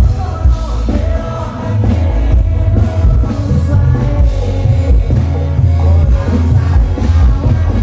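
Loud live dangdut koplo band music with a singer, heavy in the bass.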